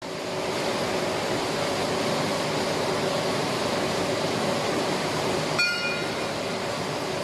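Steady machinery noise in a workshop, with one sharp metallic clink about five and a half seconds in that rings briefly.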